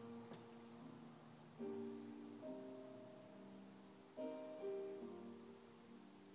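Soft instrumental background music: slow chords, a few seconds apart, that ring and fade. A single sharp click sounds just after the start.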